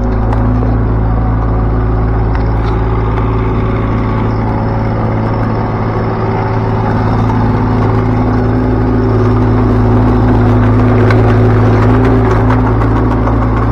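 Cat 301.8C mini excavator's three-cylinder diesel engine running steadily while the machine is driven, with a few faint clicks.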